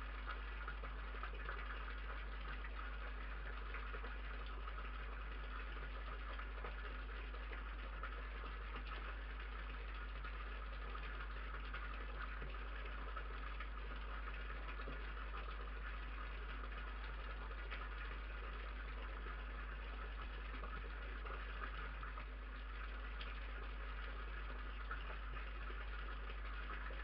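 Steady low hum and even hiss of recording noise, with no distinct sounds standing out.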